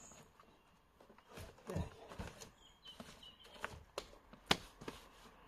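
Light, scattered knocks and scuffs of sawn wooden log rounds being handled and set down on a log pile, with one sharper knock about four and a half seconds in.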